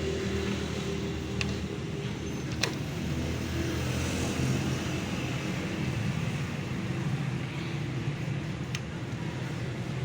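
Steady low motor-vehicle engine rumble, with a few sharp clicks: one about a second and a half in, one a little before three seconds, and one near the end.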